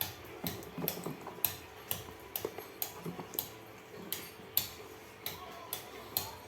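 Irregular light clicks and taps, several a second, from phones and their boxes being handled.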